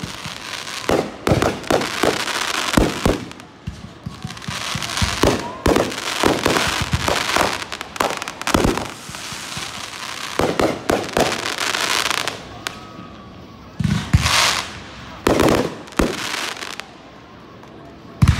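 Aerial fireworks going off in quick succession: sharp booming bursts with crackling, sizzling haze between them. The barrage eases into a lull near the end.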